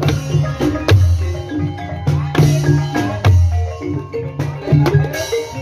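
Banyumasan calung ensemble playing ebeg accompaniment: bamboo xylophones ringing out a quick melody over drum strokes and deep low tones, in a steady beat.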